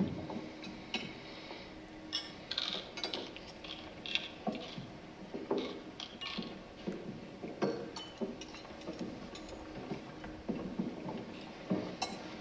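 Scattered small clicks, taps and light clinks, coming irregularly every second or so, over a faint steady hum.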